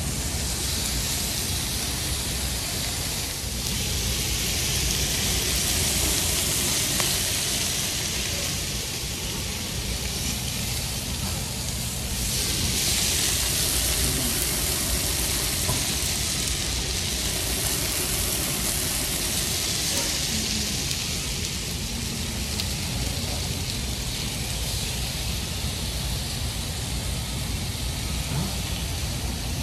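Meat sizzling on a Korean barbecue grill plate: a steady hiss that swells and eases a couple of times, over a low steady rumble.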